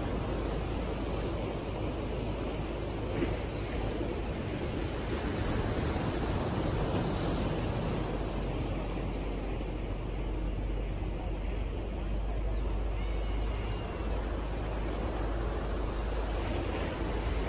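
Steady seaside ambience: an unbroken rush of wind and distant surf with a low rumble underneath, and a few faint high chirps around the middle.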